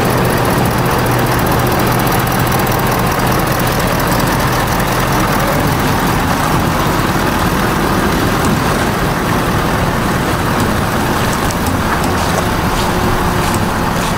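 Lifted Ford Super Duty pickup truck's engine running steadily as the truck pulls out of a shop bay and drives off.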